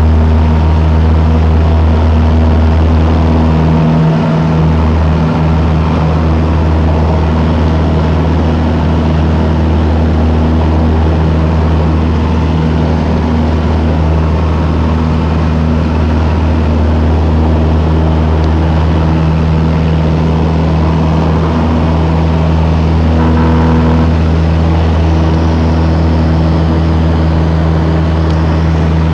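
Cessna 172's piston engine and propeller droning steadily at climb power just after takeoff, heard from inside the cabin.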